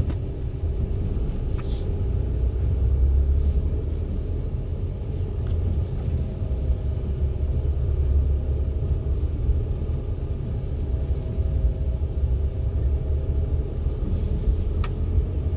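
Car driving slowly, heard from inside the cabin: a steady low rumble of engine and tyres on concrete, with a couple of faint short ticks.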